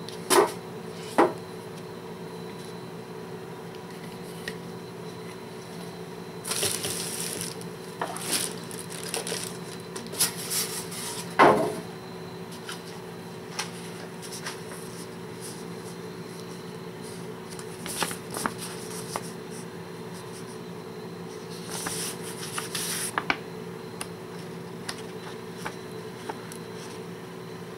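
Objects being handled by hand: scattered knocks and clicks, the loudest about eleven seconds in, with a few short bursts of rustling, over a steady low hum.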